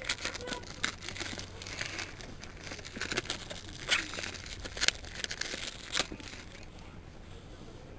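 Clear plastic shrink wrap being torn and crinkled off a small cardboard product box by hand, with sharp crackles. It dies down near the end.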